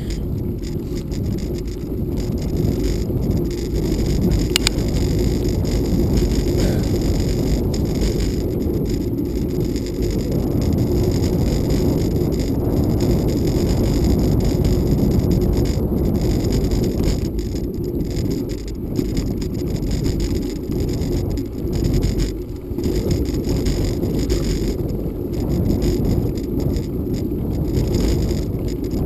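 Bicycle riding on an unpaved forest road: a steady low rumbling noise of tyre rumble mixed with wind on the microphone.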